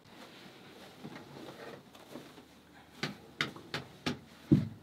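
Cloth bedding rustling as a quilt is folded and rolled into a bundle by hand, with a few sharp slaps of the fabric in the second half and a dull thump near the end.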